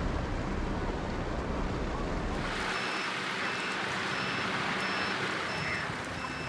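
Water sloshing and washing around a half-submerged car, a steady noisy rush. A low rumble in the first two and a half seconds drops away, after which faint, evenly repeating beeps sound over the water.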